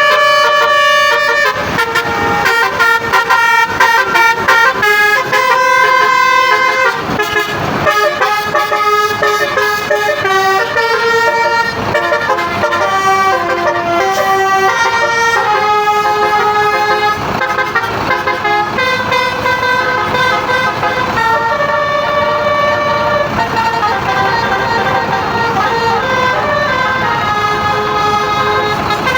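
Indonesian tour bus's musical 'telolet' (basuri) horn playing a tune: loud held horn notes stepping from pitch to pitch, several sounding together.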